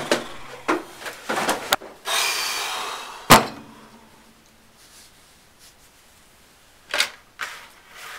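Knocks and a long rustle as a man drops into a desk chair and settles back, ending in one sharp thump about three seconds in as his feet land on the desk. Near the end, two clicks and a clatter as a rotary phone's handset is picked up.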